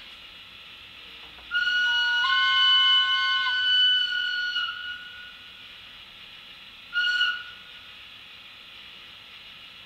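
Model Swiss electric locomotive's sound-decoder horn: a long chord-like blast of about three seconds that steps up in pitch shortly after it starts, then a short toot a couple of seconds later.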